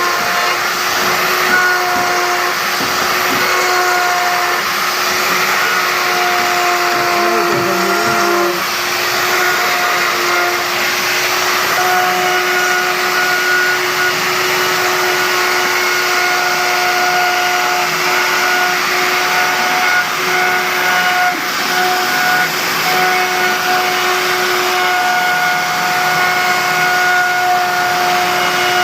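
Electric motor running steadily with a high whine over a loud hiss, in the manner of a power tool or dust extractor.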